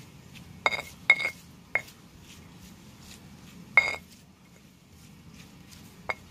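Spatula knocking and scraping against a wok while stir-frying lamtoro seeds: five sharp ringing clinks, three in the first two seconds, one near four seconds and a short one near the end.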